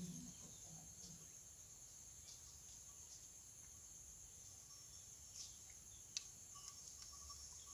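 Near silence: a faint steady high-pitched hiss, with a couple of faint ticks in the second half.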